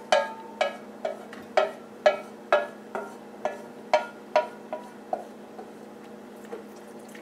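About eleven light knocks, each with a brief ringing tone, evenly spaced at about two a second and fading out about five seconds in.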